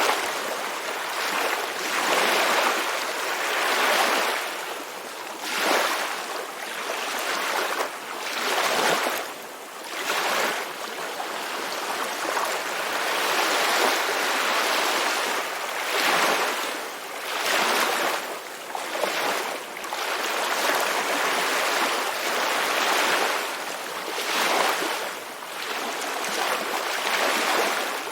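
Ocean surf: waves washing in and pulling back, a steady rush that swells and falls every couple of seconds.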